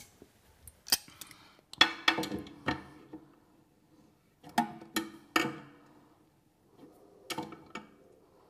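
Adjustable spanner clinking and scraping on the float valve's brass back nut as it is tightened on the cistern, in four short clusters of metallic clicks and taps with pauses between.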